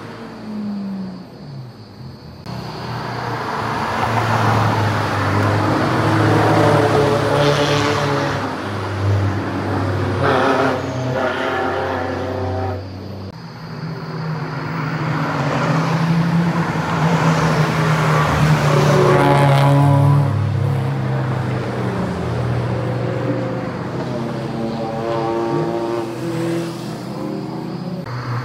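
Several sports cars passing one after another on a winding mountain road, each engine note swelling as it approaches, rising and falling in pitch as the car accelerates and slows through the bends, then fading away.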